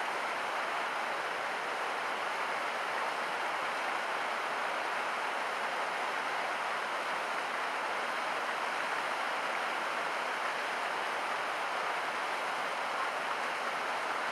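Steady rush of flowing water, an even hiss with no breaks or distinct splashes.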